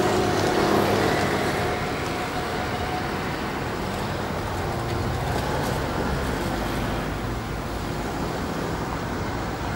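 Iyotetsu Moha 2100-series tram No. 2102 running away over the junction tracks. A steady rumble of wheels and running gear slowly fades, and a tone heard at first dies out within about two seconds.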